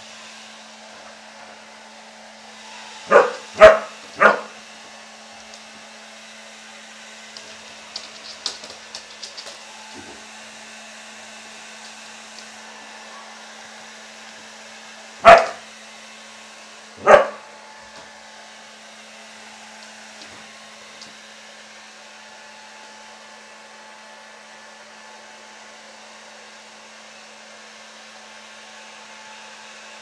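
Handheld hair dryer blowing steadily while a Siberian husky barks at it: three quick barks about three seconds in, then two more around fifteen and seventeen seconds.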